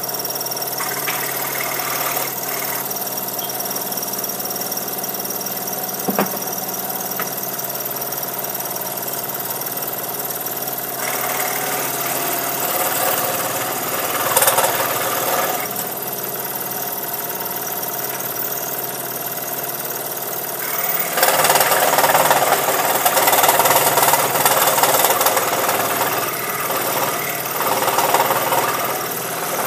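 Scroll saw running steadily as its blade cuts through wood. The cutting grows louder and harsher for a stretch about halfway through, and again for most of the last third.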